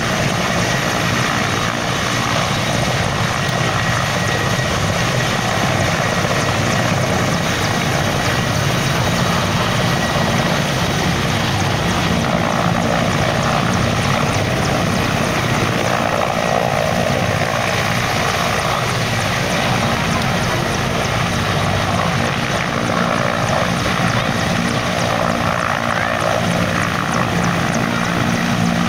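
Mil Mi-8 military helicopter hovering low, its turbine engines and rotors making a steady, loud noise that holds unchanged.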